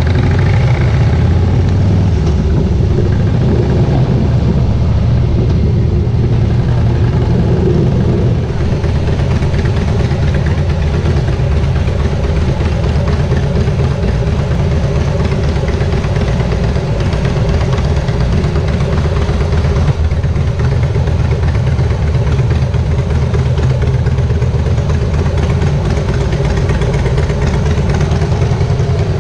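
Harley-Davidson motorcycle's V-twin engine idling steadily as the bike creeps along at walking pace and comes to a stop.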